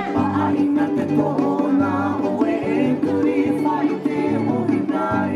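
Music for the dance: a song with a singing voice over plucked strings and a steady bass line.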